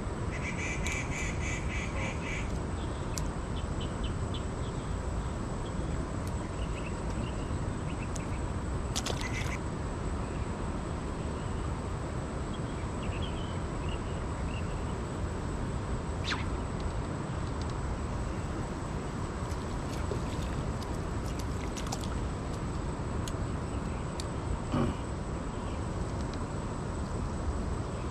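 Steady rush of a rain-swollen mountain stream, with a bird giving a quick run of calls in the first couple of seconds and a few faint clicks later on.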